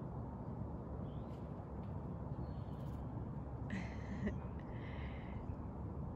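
Light wind rumbling on the microphone, with a few brief higher-pitched sounds, the clearest about four seconds in.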